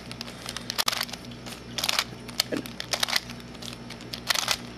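Plastic layers of a Square-1 star prism puzzle being turned over and over, a string of sharp clicks and clacks as the R and U turns of a repeated move sequence are made. A steady low hum runs underneath.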